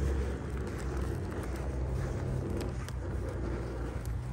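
Handheld butane canister torch burning with a steady rushing flame sound as it is held to split kindling to light it, with a few faint ticks along the way.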